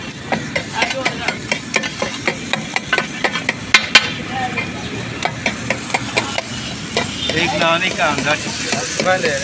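Metal spatulas clattering rapidly against a large tawa griddle, several strikes a second, over the steady sizzle of food frying on it. One strike about four seconds in is louder than the rest.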